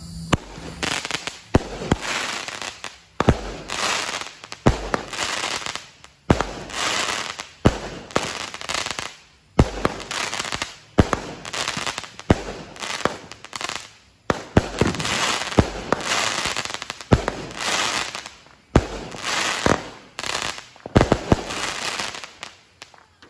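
A multi-shot consumer firework cake firing shot after shot, a little more than one a second. Each sharp bang trails off in crackling, and the volley stops near the end.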